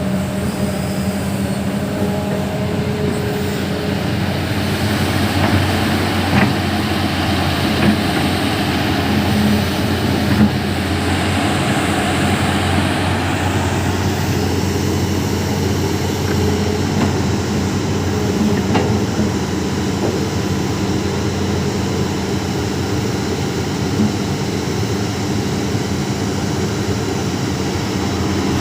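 Heavy diesel engine running steadily at a constant speed, with a few sharp knocks scattered through it.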